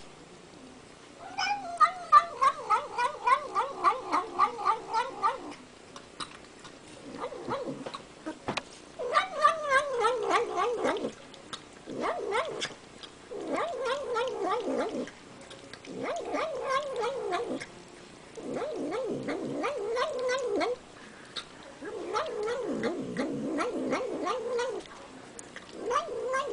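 Domestic cat eating and making a weird, wavering cry with a fast wobble in pitch, in about eight separate bouts a second or several seconds long with short breaks between them.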